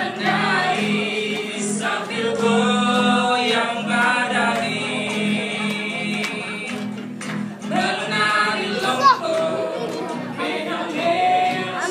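A choir singing an Indonesian regional folk song in several-part harmony, with sustained, held notes.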